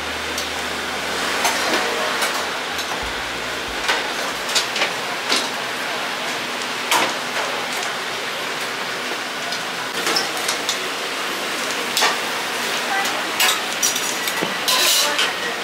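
Eatery clatter: many short clinks of dishes and utensils over a steady hiss, with indistinct voices in the background.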